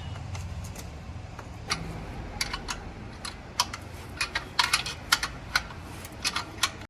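Irregular light clicks and taps of hand tools working on metal as an exhaust is being fitted to a motorcycle, more frequent in the second half.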